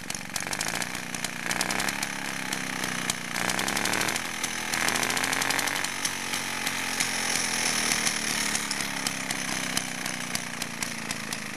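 Villiers Mk 8C single-cylinder two-stroke engine running fast with a rapid, buzzing exhaust, its throttle wedged partly open. Its speed rises and dips a few times a few seconds in, then it settles. It runs on a 16:1 petrol-oil mix, with its carburettor still needing a little adjustment.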